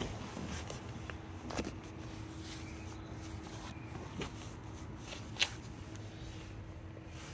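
Handling noise: a hand brushing and tapping the leather seat back and grab handle, with soft rustles and a few light clicks, the sharpest about five seconds in, over a steady low hum.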